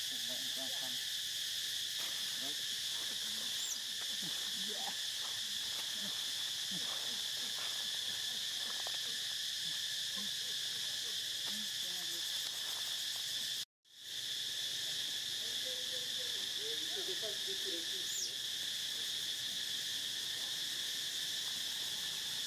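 Steady chorus of insects, crickets or cicadas, droning on several high tones without a break. It cuts out completely for a moment just after halfway, then resumes.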